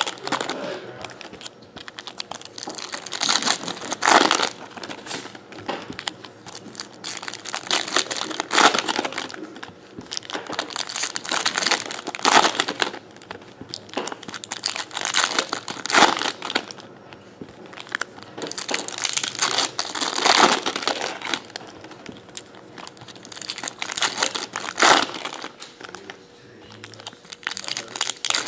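Foil trading-card pack wrappers crinkling in bursts every three to four seconds as the packs are handled and torn open one after another.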